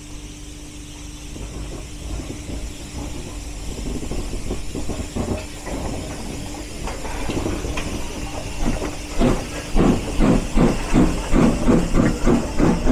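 Steam saddle-tank locomotive running light along the platform: steam hissing, with a regular beat about twice a second that gets louder over the last few seconds as the engine draws near.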